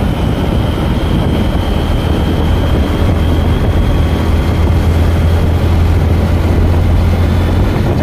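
Wind rushing over the microphone of a moving two-wheeler, mixed with its engine and tyre noise: a loud, steady rumble.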